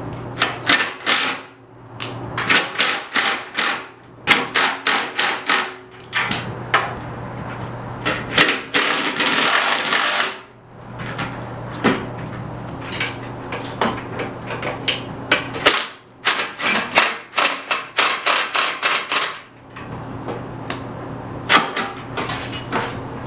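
Cordless impact wrench hammering in repeated bursts of rapid blows, each a second or two long, as it removes the bolts of a C5 Corvette's lower radiator support bracket. A steady low hum runs underneath.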